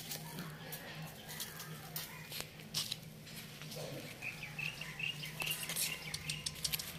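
Two puppies play-fighting on sand: scuffling and pattering of paws, many short scattered clicks over a steady low hum, with a quick run of short high chirps in the second half.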